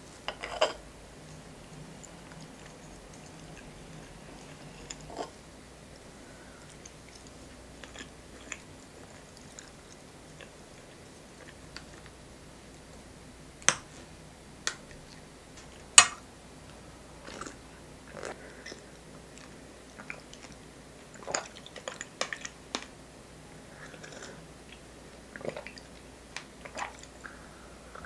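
Close, quiet eating sounds: soft chewing of sponge cake and a metal fork clicking against a ceramic plate. Sharp clinks of a spoon against a tall glass come as a strawberry latte is stirred, the loudest a little past halfway, with a run of small clicks near the end.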